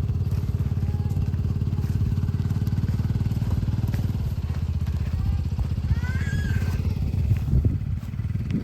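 An engine running steadily at an even speed throughout, with a few knocks near the end.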